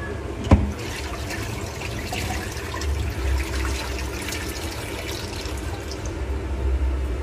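Water running and splashing in a stainless-steel kitchen sink around a saucepan of pasta, with one sharp knock about half a second in.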